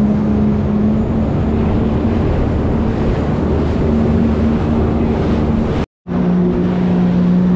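Jet ski engine running at speed, a steady drone over the rush of spray and wind on the microphone. The sound drops out for an instant about six seconds in, and the engine note is a little lower afterwards.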